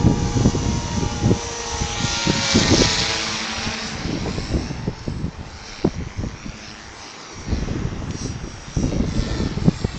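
Align T-Rex 450 Sport electric RC helicopter's motor and rotor whine, shifting slightly in pitch as it flies, loudest about three seconds in and then fading. Strong wind buffets the microphone with irregular low thumps throughout.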